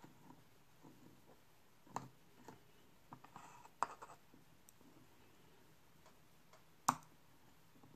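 Metal tweezers clicking and tapping as small chips are lifted off a circuit board and set down on a wooden board: a few sharp clicks about two, four and seven seconds in, the last the loudest, with light scraping around the second one.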